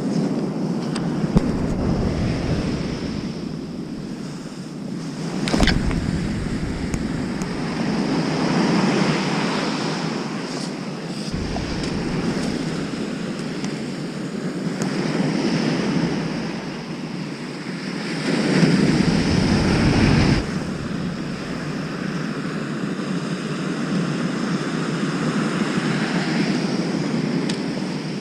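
High surf breaking on a sandy beach, the wash swelling and easing every few seconds, with wind buffeting the microphone; the loudest surge comes about two-thirds of the way through.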